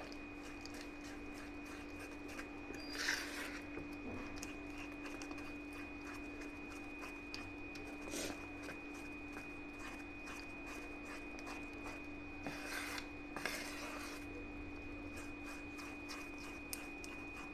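Wire whisk scraping and rubbing through thick cake batter against the sides of a stainless steel bowl, in quick, quiet strokes with a few louder scrapes. A steady faint hum runs underneath.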